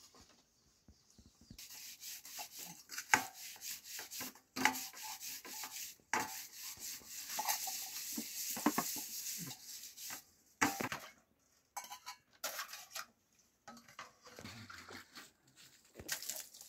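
Metal pots and dishes clattering and scraping, with many sharp clinks and knocks over a steady hiss, thinning out to scattered clinks in the second half.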